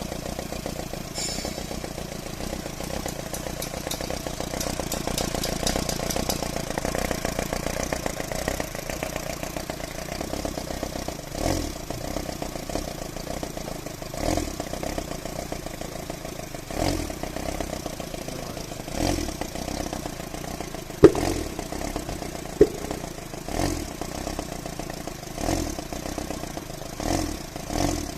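Engine idling with a misfire: the steady running note lurches in a surge every two to three seconds through the second half. Two sharp clicks about two-thirds of the way through are the loudest sounds.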